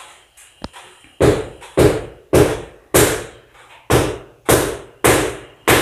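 Hammer blows at a steady pace of about two a second, each sharp strike ringing briefly before the next.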